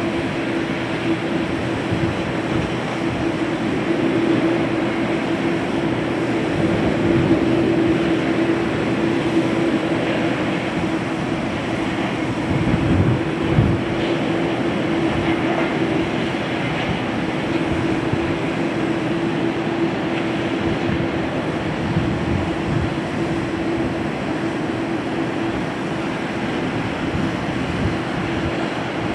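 Boeing 787 airliner's twin jet engines running at low taxi thrust: a steady rush with a constant low hum, and a brief low rumble about halfway through.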